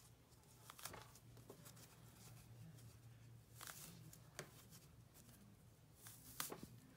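Near silence, with a few faint rustles and clicks of fabric strap and elastic being handled.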